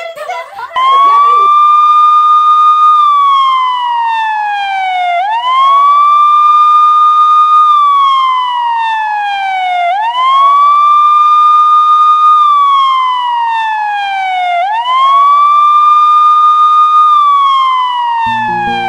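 Emergency-vehicle siren on a wail pattern. Four slow cycles: each swoops up quickly, holds a high note for about two seconds, then glides down, repeating about every four and a half seconds. It starts about a second in.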